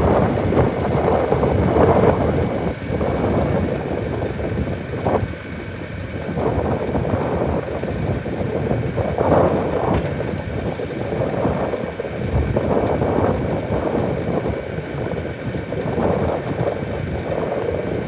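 Diesel engine of a 2014 Bobcat S530 skid steer loader running while its loader arms lift and tilt the bucket, the engine sound swelling and easing every second or two.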